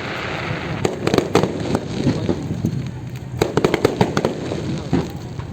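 Aerial fireworks bursting and crackling, a dense run of sharp pops about three and a half seconds in.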